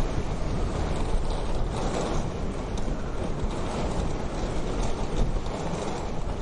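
Wood fire crackling in a wood-burning stove: irregular small pops and snaps over a steady low rumble.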